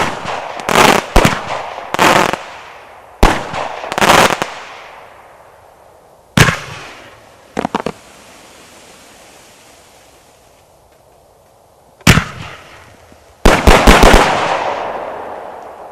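An 81-shot multishot firework cake (Crilly's Apocalyptic Warrior) firing its shots as loud, echoing bangs. A string of bangs comes in the first four seconds, then single bangs about six and twelve seconds in with a quieter gap between them. A quick cluster of about five bangs comes near the end and dies away slowly.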